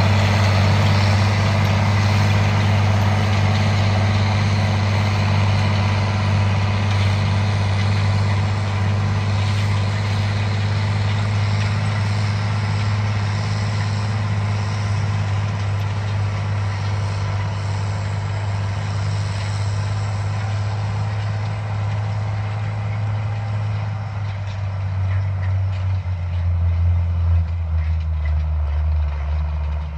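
Case IH 9130 four-wheel-drive tractor's diesel engine running with a steady low drone while pulling a tillage implement across the field. Near the end the drone drops to a lower pitch.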